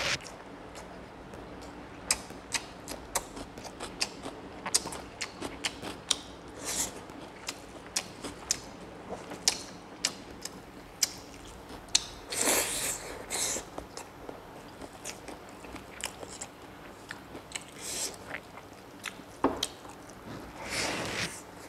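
Close-up chewing and mouth sounds of a person eating rice and pork by hand: a steady run of short wet clicks and smacks, with a longer, noisier stretch about halfway through and another near the end.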